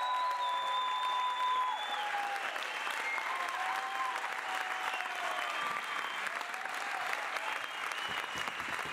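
Audience applauding, with a few held high tones over the clapping, the longest lasting about two seconds at the start.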